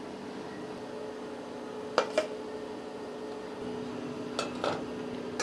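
Stainless-steel ladle clinking against a steel idli mould plate while idli batter is poured: two sharp metallic clinks about two seconds in and two fainter ones near the end, over a steady low hum.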